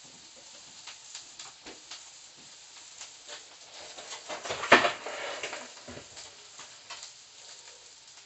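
Small clicks and knocks of things being handled at a kitchen counter. About halfway through comes one sharp, louder knock, followed by a brief hiss.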